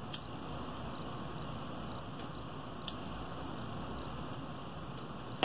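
Faint steady hiss of workshop background noise with two small clicks about three seconds apart, while the frayed end of a polypropylene pull rope is scorched with a lighter.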